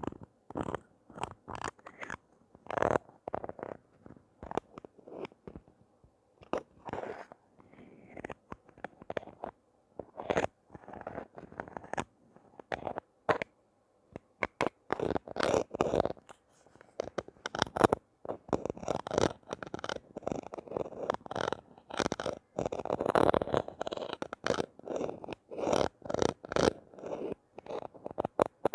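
Hands unboxing toys: an irregular run of crunching, crinkling and scratching from the packaging, with a short lull about halfway through.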